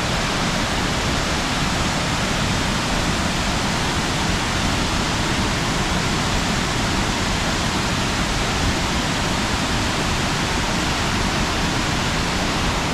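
Steady rushing of the Krka waterfalls, a constant, even noise of falling water, swollen after heavy rain a couple of days before.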